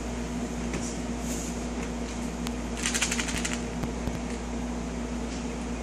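A small plastic bottle in hand, rattling in a quick run of clicks about three seconds in, over a steady low room hum.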